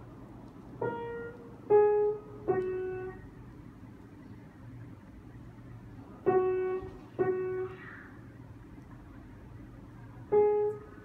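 Yamaha upright piano played slowly one note at a time: three notes about a second apart, a pause, two more notes, another pause, then one more near the end, each note ringing and fading before the next.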